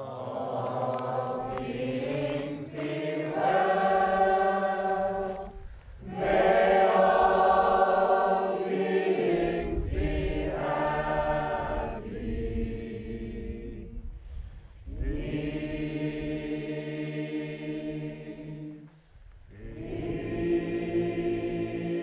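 A group of voices singing a chant together in long phrases, with short breaks between them.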